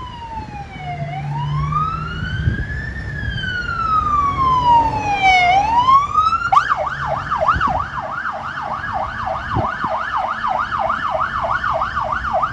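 Police car siren on wail, sweeping slowly up and down in pitch and quickening. About six and a half seconds in it switches to a fast yelp of roughly three rises a second, over a low traffic rumble.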